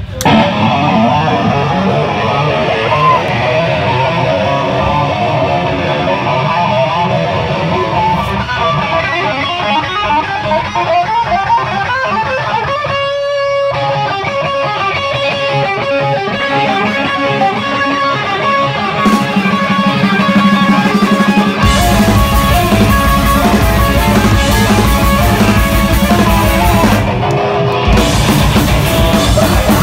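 Live hardcore metal band playing with electric guitars, loud, broken by a short pause about halfway. About two-thirds of the way in, the full band comes in much heavier, with a dense pounding low end.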